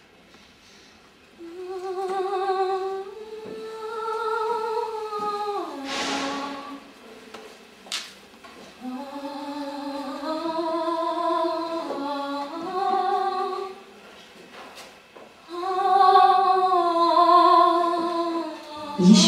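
A high voice humming a slow, wordless melody with vibrato, in three long phrases of held notes. A short hiss comes about six seconds in and a sharp click about eight seconds in.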